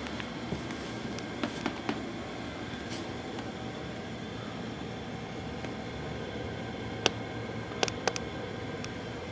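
Steady low hum and hiss, with a few short sharp clicks about one and a half seconds in and again near the end.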